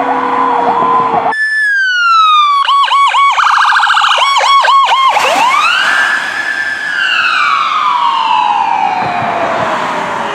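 Electronic emergency-vehicle sirens in several quick clips. First comes a fast-pulsing siren over a slowly falling tone. After a cut there is a falling tone, then rapid yelping pulses broken by a brief buzzing blast. Then the Powercall whoop sweeps up and falls slowly for several seconds.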